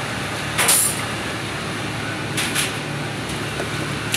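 Steady hum and fan noise of commercial kitchen machinery, such as a conveyor pizza oven and its ventilation. Brief scraping sounds come about half a second in and again around two and a half seconds in.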